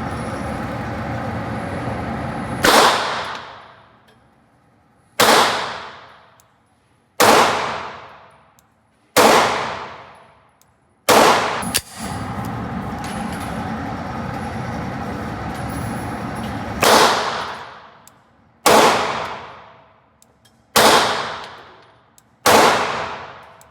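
Pistol fired at a slow, steady pace: five shots about two seconds apart, a pause of several seconds, then four more. Each shot is loud and sharp with a long echoing decay. A steady background hum returns during the pause.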